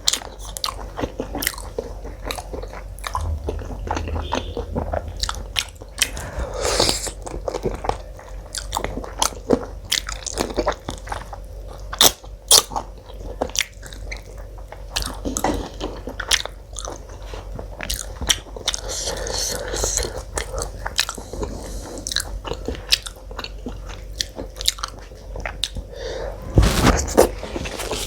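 Close-miked eating sounds of curry and paratha: wet chewing and lip smacks, with crisp crunches from biting into raw salad.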